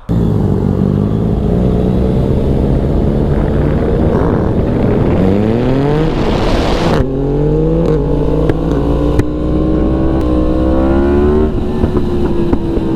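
Yamaha MT motorcycle engine accelerating hard: the pitch climbs for about seven seconds, drops sharply at an upshift, then climbs again and levels off near the end.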